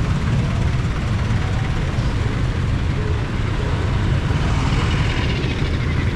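Motor vehicle engine and road noise: a steady low hum and rumble that holds level throughout.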